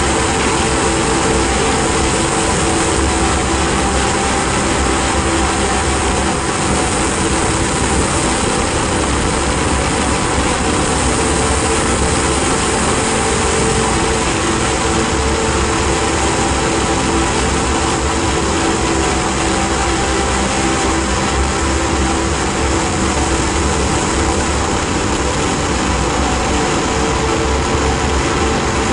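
Ambient drone and noise music: a dense, steady wash of hiss and rumble with a few sustained tones held underneath, no beat and no breaks.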